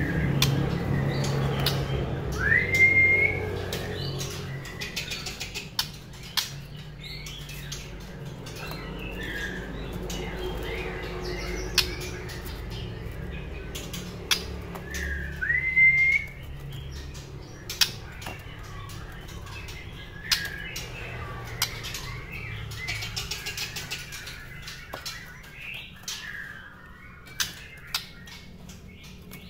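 Caged white-rumped shama moving about its cage: scattered sharp clicks and knocks from hopping and wing flaps, and two short whistles that rise and then hold, one about two seconds in and one about fifteen seconds in.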